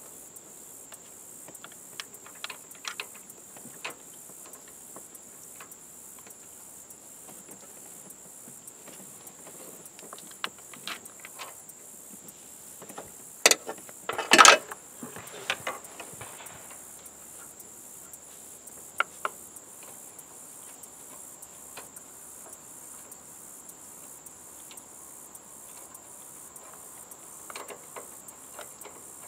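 Hands handling the rubber coupler and parts around a Subaru top-mount intercooler: scattered short clicks and knocks, with a louder brief clatter about halfway through.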